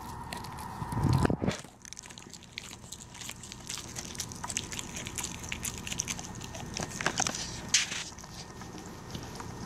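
A Pembroke Welsh Corgi chewing a dried catfish-skin chew, with many crisp crunches and crackles as it bites down. A low bump about a second in is the loudest sound.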